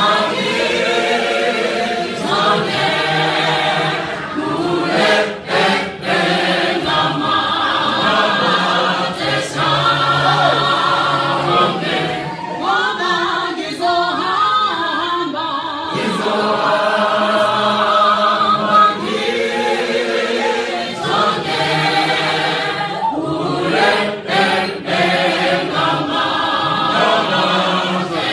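A mixed choir of men and women singing a South African gospel song a cappella in full part harmony, phrase after phrase with short breaks between.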